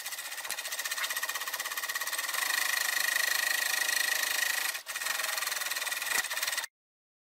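Gemsy 1D three-thread overlocker running at speed, its needle and loopers making a fast, even clatter. It drops out briefly once and then cuts off abruptly near the end.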